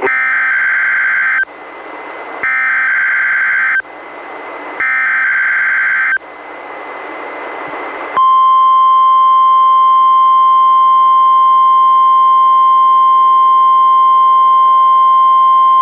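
NOAA Weather Radio alert: three short bursts of the SAME digital header data, a warbling electronic screech with hiss between bursts. About eight seconds in, the steady 1050 Hz warning alarm tone starts and holds.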